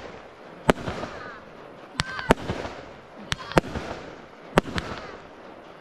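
Aerial firework shells bursting in a series of sharp bangs, about seven in under six seconds at irregular intervals.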